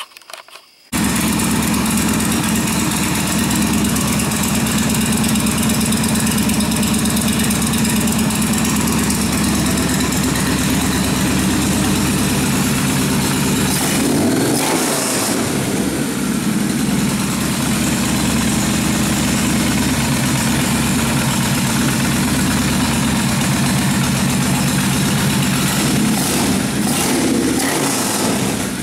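Freshly rebuilt Kawasaki 1600 V-twin engine running at a steady idle during fine tuning. It cuts in suddenly about a second in, and about halfway through its pitch briefly rises and falls back.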